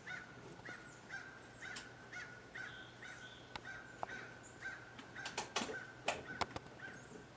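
A faint short chirp, rising and then holding one pitch, repeated about twice a second, with a few sharp clicks a little after the middle.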